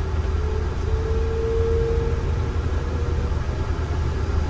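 Airbus A330-300 engines heard from the cockpit as thrust is advanced for takeoff: a steady low rumble with a faint whine that rises slightly and fades out about three seconds in.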